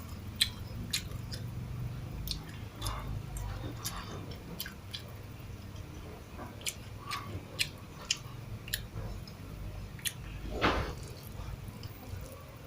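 A person chewing a mouthful of rice and canned sardines close to the microphone, with many short wet mouth clicks and smacks. A louder, longer noisy sound comes about ten and a half seconds in.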